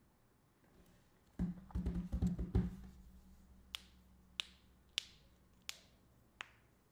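Desk handling sounds: a quick cluster of dull knocks about a second and a half in, then five sharp single clicks evenly spaced about two-thirds of a second apart.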